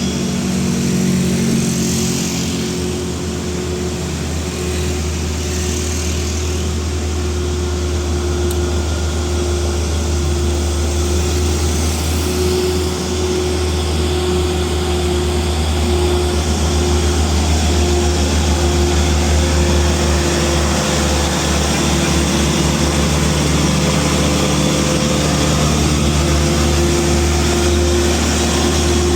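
Heavy vehicle's diesel engine labouring up a steep climb: a steady low drone with a constant higher hum on top, growing slightly louder in the second half.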